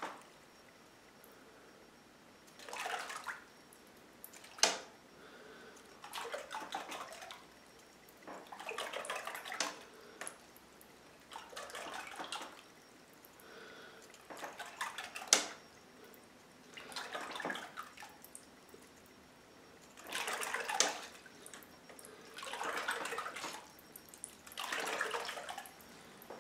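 Bathtub water churned in short swishing bursts, about one every two seconds, as a homemade lure is pulled through it, with a few sharp clicks between the bursts.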